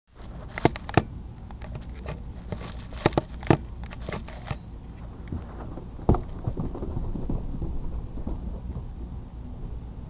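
Handling noise from a handheld camera: a run of sharp clicks and crackles in the first half, then a single bump about six seconds in as the camera is brushed against clothing, over a low rumble.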